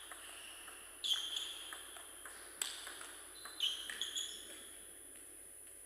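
Table tennis rally: the ball clicking off the bats and the table in about eight sharp, unevenly spaced ticks, each with a brief high ring, from about a second in until past four seconds.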